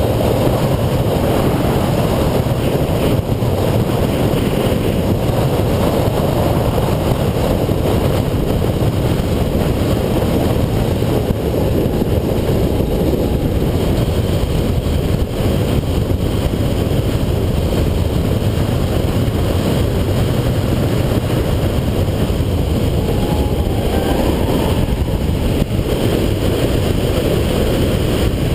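Subaru Impreza 2.5i's 2.5-litre flat-four engine running, buried in a steady loud rush of wind and road noise.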